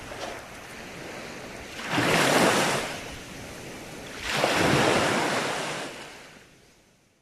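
Small waves breaking and washing up a sandy beach: two surges of surf, the second a couple of seconds after the first, over a steady wash of sea. The sound fades out near the end.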